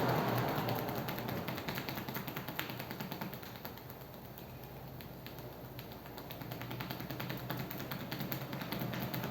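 Rapid light fingertip tapping on a person's head in a percussive head massage, many quick taps in a row, softer for a few seconds mid-way.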